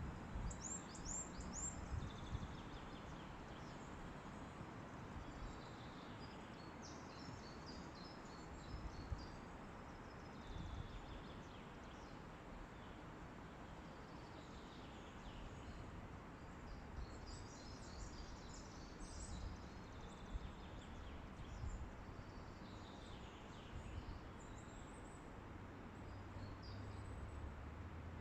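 Wind rushing steadily through forest trees, with small birds singing in short high chirping phrases every few seconds.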